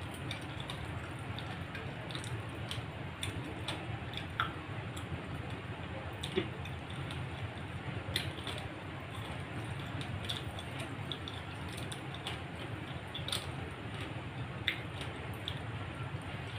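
Eating rice and fried fish by hand from a steel plate: fingers squishing and mixing the food, with scattered sharp little clicks and mouth sounds of chewing, over a steady low hum.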